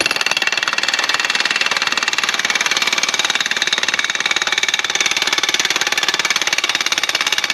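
Ingersoll Rand 1-inch cordless impact wrench hammering steadily at a long-seized nut on a truck transmission's shaft, a rapid, unbroken rattle of impacts. The nut is one that normally takes a torch and a long breaker pipe to free.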